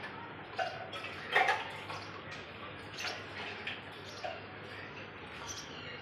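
House sparrow nestlings giving short begging cheeps, scattered a handful of times, the loudest about a second and a half in, over a low steady hum.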